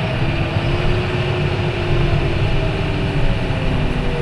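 John Deere tractor's engine and drivetrain running steadily under way, heard from inside the cab: a low rumble with a faint whine that wavers slightly in pitch.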